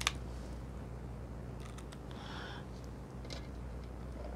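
A few faint clicks and a brief soft scrape as a small screw is started into a sheet-metal box with a hand screwdriver, over a low steady hum.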